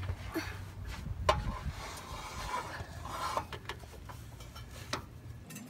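Scattered clicks and short metal scrapes from a hand rivet nut (nutsert) tool being worked into a hole in a Jeep's steel frame rail.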